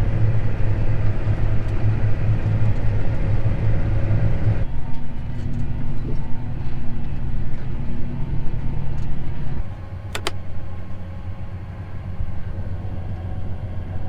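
Vehicle engine running steadily with a low hum. The sound changes abruptly about five seconds in and gets quieter near ten seconds, with a couple of short clicks.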